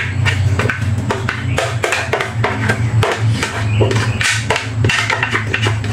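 A spatula scraping and knocking against a plastic blender jar as pureed onion and bell pepper is emptied out, a run of irregular clicks and taps. Background music with a steady low bass plays underneath.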